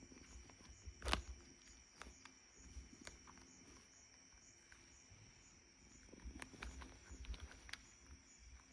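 Faint outdoor ambience: a steady high insect trill pulsing a few times a second, with scattered sharp clicks, the loudest about a second in, and soft low thumps.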